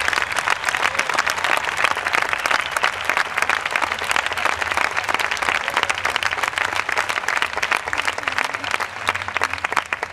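Crowd applauding with dense clapping that thins out and fades near the end.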